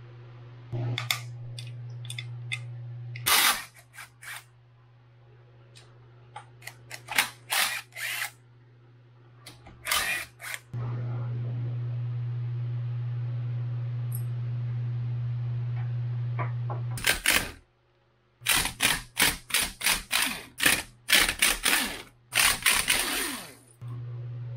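Metal clinks, taps and knocks of engine parts and hand tools being handled while a Yamaha YZ250F top end is taken apart, with a quick run of clinks and taps near the end. A steady low hum sits under several stretches and starts and stops abruptly.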